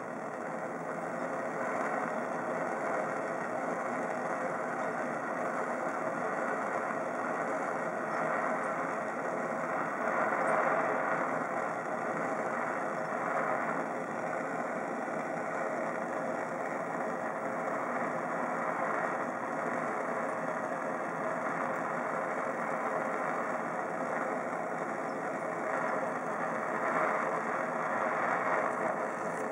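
Handheld gas torch flame hissing steadily, with slight swells in level.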